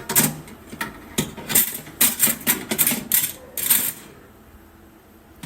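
A quick, irregular run of about a dozen clattering knocks of hard objects being handled, stopping about four seconds in.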